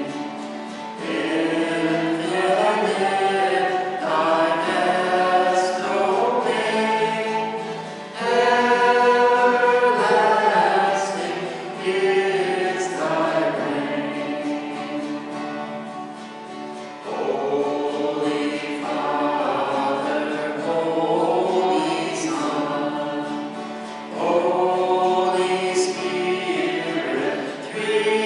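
Choir singing a hymn in phrases of a few seconds each.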